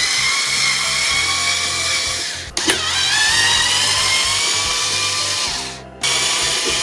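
Electric screwdriver's motor whining as it backs out screws, in three runs with short breaks about two and a half and six seconds in; the pitch sags under load at the start of the second run and then steadies.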